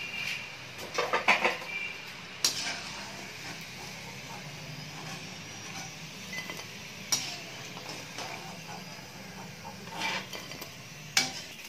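Paneer 65 pieces and curry leaves deep-frying in hot oil in a metal kadai with a steady sizzle. A perforated slotted spoon scoops the fried pieces out, clinking sharply against the pan about five times.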